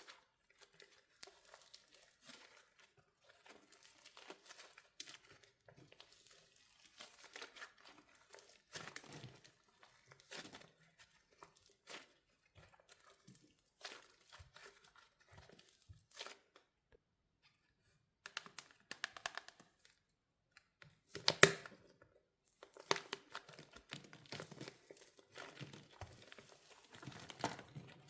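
Wax shell on a soft soap squishy cracking and crinkling as it is squeezed, in scattered small crackles with a near pause in the middle and one sharp, loudest crack about two-thirds of the way through.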